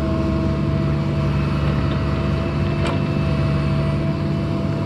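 Mini excavator's diesel engine running at a steady speed, with a steady whine over the drone. There is a single sharp click about three seconds in.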